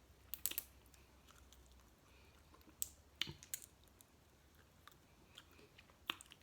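Close-miked eating sounds: quiet chewing with scattered sharp clicks and cracks, clustered about half a second in, around three seconds in and near the end.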